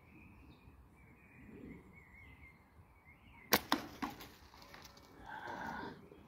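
A slingshot shot: the flat latex bands are released with a sharp snap a little over halfway through, followed within half a second by two more sharp clicks as the 7 mm steel ball reaches the target. A brief rustle follows, and faint birdsong sits underneath.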